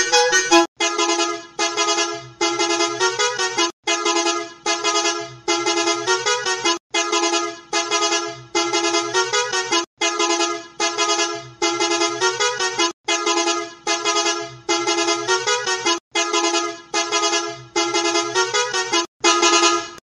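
Multi-tone musical bus horn playing its 'tu, tu-tu-tu' tune over and over in loud blasts, digitally altered as a sound variation. There is a brief break about every three seconds.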